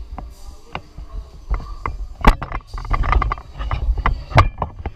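Irregular sharp knocks and clacks, two of them much louder than the rest, over rustling and low rumble close to the microphone: the clatter of a fencing training session with swords and padded gear.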